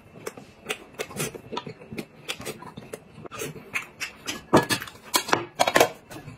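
Eating at close range: chewing and mouth noises with irregular clicks of chopsticks against a ceramic bowl. Near the end come a few louder knocks and rustles as the bowl is set down on the table and lettuce is handled.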